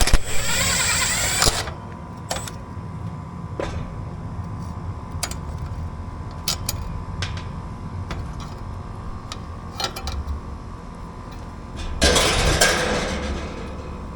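Work at an air-conditioning outdoor unit: scattered tool clicks and knocks over a steady hum, with two bursts of hissing about a second and a half long, one at the start and one about twelve seconds in.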